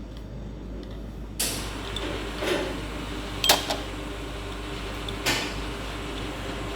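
E61 group head lever on a Nota espresso machine being worked, giving short creaks and clicks: the squeak of a lever that needs fixing. About a second and a half in, a steady machine hum starts and runs on under them.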